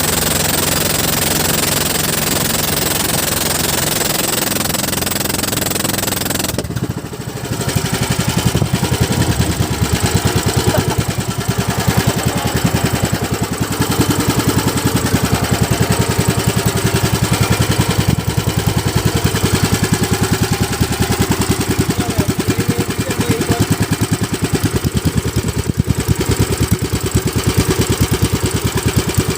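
Fishing boat's engine running steadily. About seven seconds in, the rushing noise drops away briefly, then the engine's rapid, even pulsing comes forward louder and stays.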